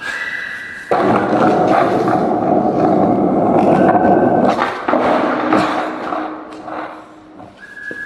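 Skateboard wheels rolling on pavement: a rumble that builds about a second in, holds for a few seconds and then fades as the board slows, with a faint whine from the wheels and a few sharp clacks.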